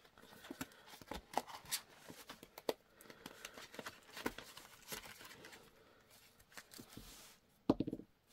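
Clear plastic binder pockets and a paper card rustling and crinkling as they are handled, with scattered light clicks and taps, and a short louder cluster of clicks near the end.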